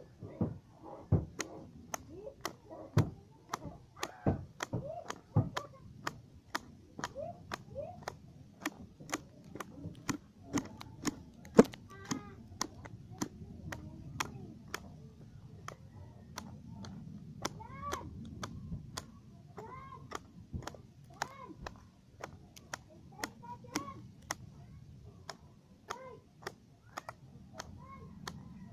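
Sharp knocks or taps repeating about once or twice a second, with short calls, each rising and falling, heard through the middle and later part.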